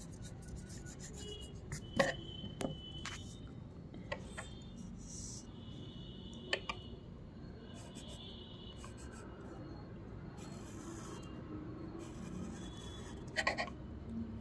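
Graphite pencil scratching across paper in short drawing strokes, with a few sharp clicks, the loudest about two seconds in.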